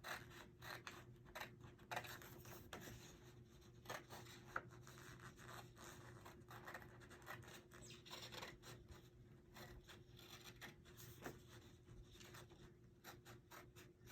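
Faint, repeated snips and scrapes of scissors cutting through light photo-paper cardstock along an outline, over a faint steady hum.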